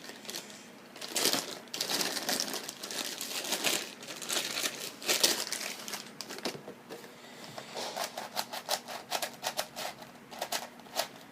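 Plastic packaging of a 4x4 puzzle cube crinkling and rustling as it is unwrapped. Then, from about two thirds of the way in, a run of quick clicks several times a second, which fits the cube's layers being turned.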